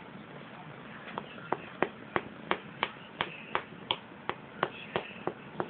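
A person's fingers flicking, an even run of sharp clicks about three a second that starts about a second in.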